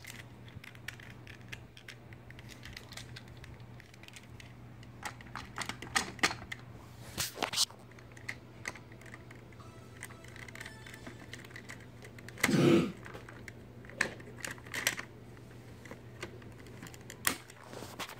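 Scattered light clicks and taps of a handheld phone being handled and moved about while filming, with one louder, longer rustle about twelve and a half seconds in, over a steady low hum.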